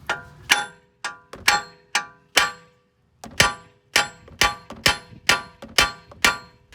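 Big hammer pounding on steel steering parts to knock a worn outer tie rod end loose: a fast run of sharp, ringing metal clangs about two a second, with a pause of about a second partway through.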